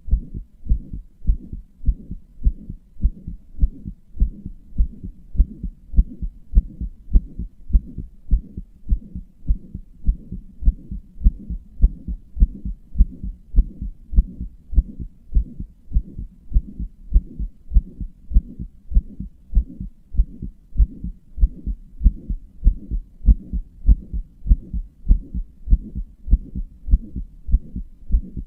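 Human heartbeat, a fast, regular train of dull low thumps at about two beats a second, which the owner describes as a murmuring heart.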